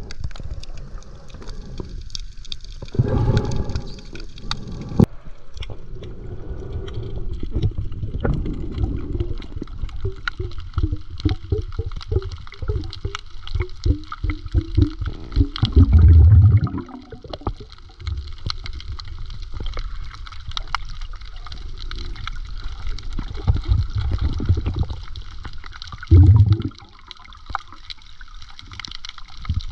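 Water sloshing and gurgling close to the microphone, with many scattered clicks and three louder low rushes, about 3, 16 and 26 seconds in.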